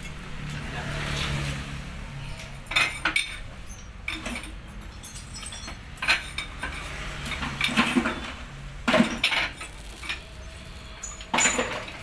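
Metal tools and parts clinking and knocking in about six scattered bursts during hand work at a bus wheel, over a low steady hum that stops about three-quarters of the way through.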